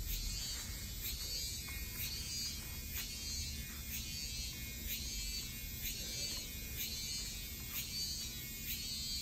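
Cicada calling in a steady pulsing rhythm: a high buzzing note that rises and falls, repeated a little more than once a second.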